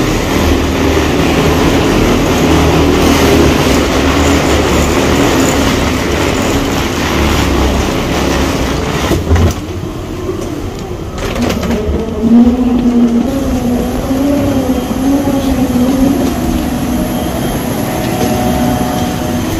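Loud, steady rushing drone of machinery at a parked airliner's jet bridge, with a low hum. The higher hiss thins out briefly about ten seconds in, and from just past halfway a humming tone wavers up and down.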